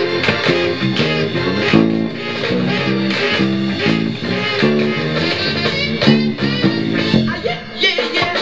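Up-tempo early-1960s rock and roll record with an electric bass played along to it, a bouncing bass line under the band. The music thins briefly just before the end.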